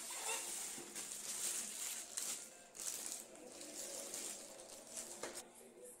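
Clear plastic bag rustling and crinkling in quick irregular crackles as it is pulled off a robot vacuum, dying away near the end.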